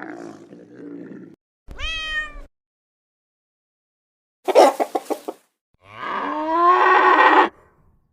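A series of four separate animal calls with short silences between them. A short pitched call about two seconds in has the shape of a cat's meow, a quick pulsing call comes near the middle, and the loudest, a long call rising in pitch, comes near the end.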